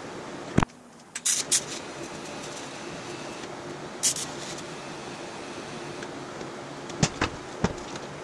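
TIG welding work: a steady hum throughout, with short high hisses, one about four seconds in as the arc is lit, and a few sharp clicks, one just after the start and three near the end.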